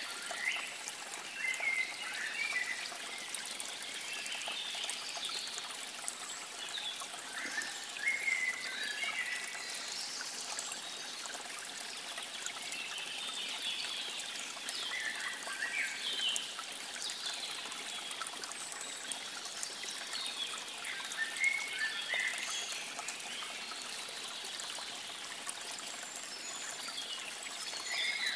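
Water trickling steadily, with birds chirping in short scattered phrases every few seconds.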